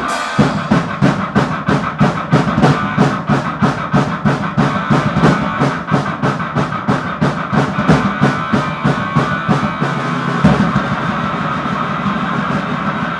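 Grind/noise punk band playing: a drum kit beats fast and evenly, about four hits a second, each struck with a cymbal, under a sustained guitar. About ten seconds in the drumming stops and the guitar rings on alone.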